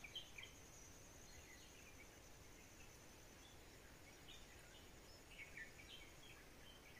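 Faint forest birds calling: short, scattered chirps that come thicker a little past the middle, over a steady faint high-pitched whine.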